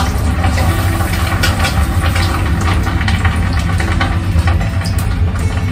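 Steady low hum of a commercial kitchen extractor hood fan, with scattered crackles of oil frying in a pan on the stove.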